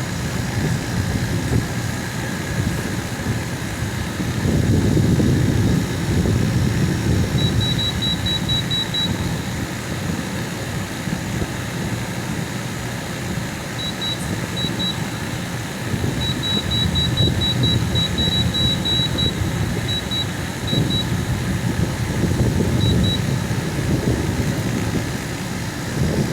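TCL portable air conditioner running, a steady low whoosh of fan air that swells louder a few times. Short runs of rapid high-pitched beeps come and go over it.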